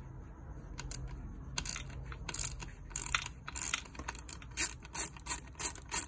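Right-angle ratchet wrench clicking in short strokes as it loosens bracket bolts. The clicks are irregular at first, then settle to about three strokes a second in the second half.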